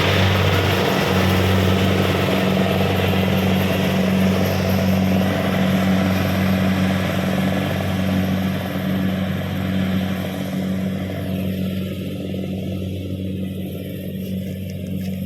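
Kubota DC-70 Pro combine harvester working, its diesel engine running with a steady low drone and a broad mechanical noise. The higher part of the sound falls away over the last few seconds as it grows quieter.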